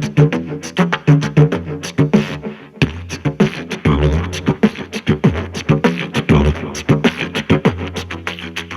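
Didgeridoo beatboxing on a C# Saxo-Didge: a low drone under fast, rhythmic vocal percussion beats. There is a brief break just before three seconds in, after which a deeper bass drone comes in.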